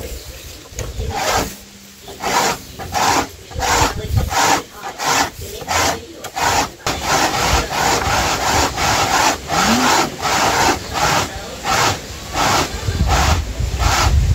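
Corn cob rubbed hard up and down a metal grater nailed to a wooden board, a rasping scrape at about two strokes a second, grating the corn for corn flour. There is a brief lull about two seconds in before the strokes pick up again.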